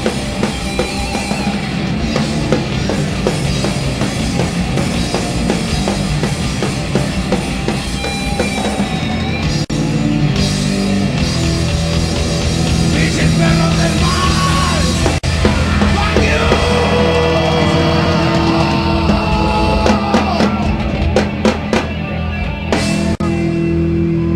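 A rock band playing live, loud and fast, with a pounding drum kit under the guitars and bass, in a heavy metal or punk style.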